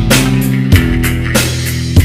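Background rock music with drums and electric guitar, with drum hits about every two-thirds of a second.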